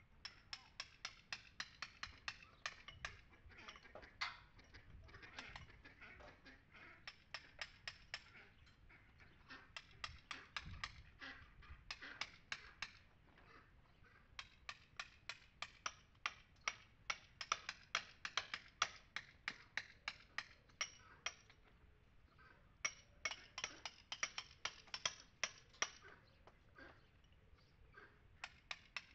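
Hammer striking a chisel to cut old mortar out of the joints of a stone wall: quick runs of sharp taps, about three or four a second, with short pauses between runs.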